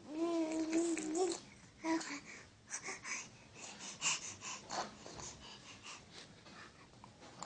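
Baby cooing: one drawn-out, slightly wavering vocal sound in the first second and a half and a short note just after, then a run of short breathy little sounds.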